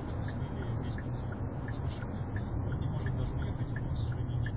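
Steady low rumble of road and engine noise inside the cabin of a Hyundai Santa Fe driving at about 60 km/h.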